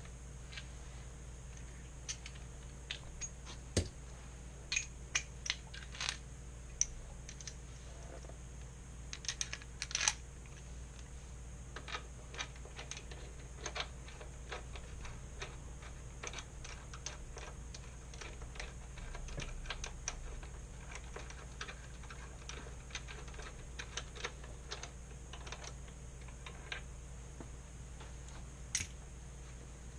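Ratchet wrench with an Allen (hex) socket clicking in short, irregular runs as the new frame-slider bolt is worked in and tightened into the motor mount.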